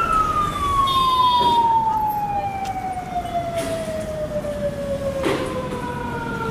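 A siren slowly winding down: one long tone falling steadily from high to low, over street traffic noise. A short knock about five seconds in.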